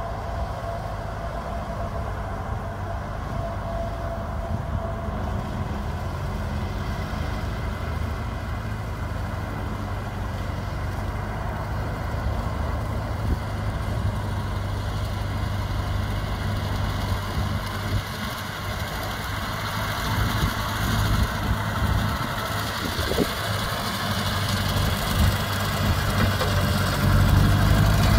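Ford N-series tractor's four-cylinder engine running steadily under load while it pulls a mower through tall grass, getting louder over the last several seconds as it comes close.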